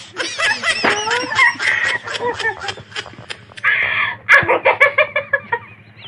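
A woman and a young girl laughing.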